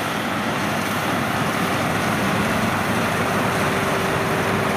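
WD102PRO rice combine harvester running steadily as it cuts and threshes rice: a dense, even machine noise with a faint high steady whine.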